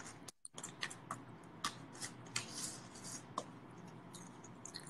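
Faint, scattered small clicks and ticks of a small plastic toy being handled and fiddled with. The audio cuts out briefly near the start.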